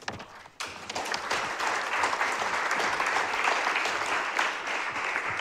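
Audience applauding: many hands clapping in a steady patter that starts about half a second in and thins out near the end.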